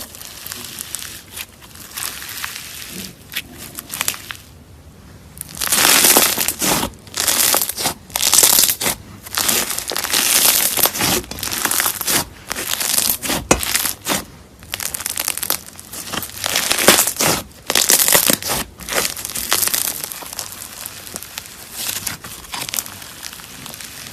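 Slime being squeezed and pressed, with crackling noise in irregular bursts about once a second and a short lull about five seconds in.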